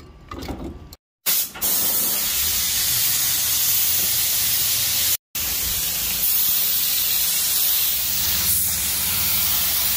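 Air-powered Central Pneumatic spray gun with a bottom cup spraying contact adhesive, a steady loud hiss of compressed air. It starts about a second in and breaks off for a moment about halfway.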